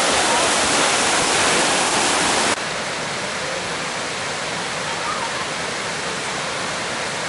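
Mountain creek water rushing down a rocky waterfall cascade, a steady dense rush. About two and a half seconds in it drops suddenly to a quieter, still steady rush.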